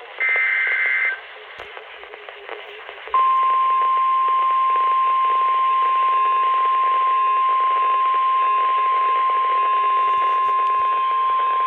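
Weather-radio alert tones over radio hiss. A short warbling SAME data burst at the start is followed, about three seconds in, by the steady single-pitch 1050 Hz warning alarm tone that announces a National Weather Service warning.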